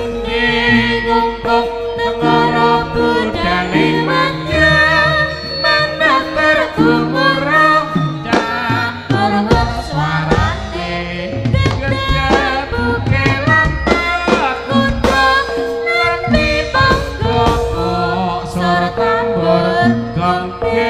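Jaranan ensemble music playing: drum strokes and gong under a wavering, high melody from slompret, suling or voice.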